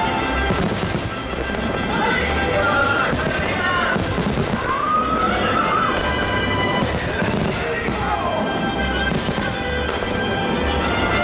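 Fireworks bursting, a few sharp bangs, over loud music with a steady beat and a singing voice: a fireworks display set to music.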